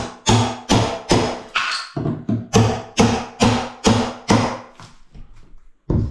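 Hammer blows struck over and over, about two to three a second, each with a brief ringing tone, knocking old tiled skirting off a wall. The strikes pause briefly about two seconds in and grow weaker near the end.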